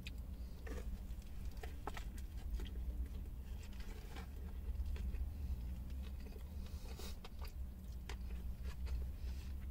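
A person chewing a mouthful of burger with mouth open, giving many small irregular wet clicks and smacks over a low steady hum.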